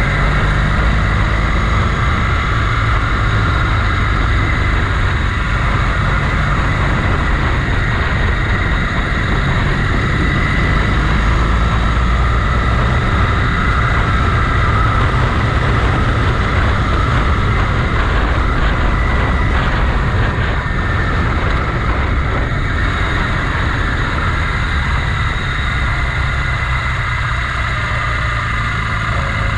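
Motorcycle engine running steadily on the move, with a dense low rumble throughout.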